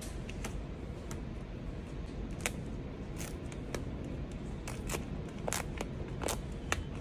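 Paper protective wrap rustling and crinkling as it is peeled and folded back off a tablet, in scattered short crackles that grow busier in the second half, over a steady low background hum.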